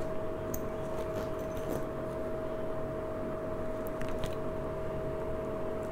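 Faint handling sounds of a zippered compartment of a fabric shoulder bag being opened and rummaged: a few soft clicks and rustles over a steady faint hum.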